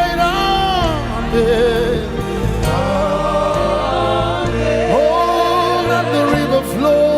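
Live gospel worship music: a band with sustained singing voices over bass and keyboards.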